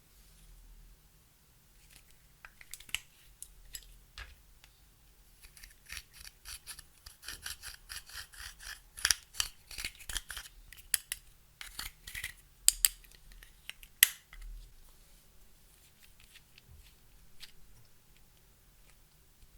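Clear slime being kneaded and stretched by hand, giving off a run of sharp, sticky clicks and pops. They are sparse at first, come thick and fast in the middle, then thin out.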